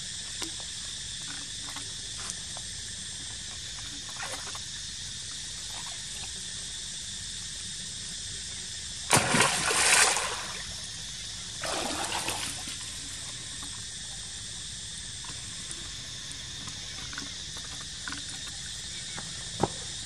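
A swimming macaque splashing in pool water: one loud splash about nine seconds in and a smaller one about three seconds later, with light water sounds in between. A steady insect drone runs underneath.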